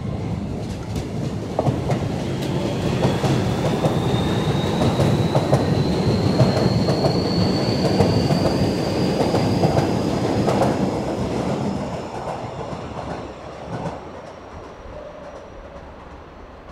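Kobe Municipal Subway train accelerating away, wheels rumbling and clattering on the rails, with a motor whine climbing steadily in pitch as it speeds up. The rumble is loudest midway and fades in the last few seconds as the train draws off.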